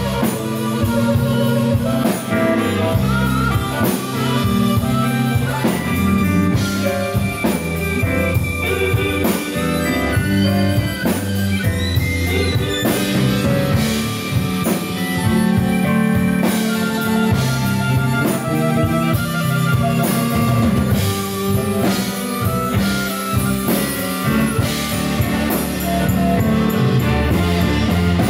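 Live band playing an instrumental passage, with a harmonica played into a microphone over electric guitar and a drum kit.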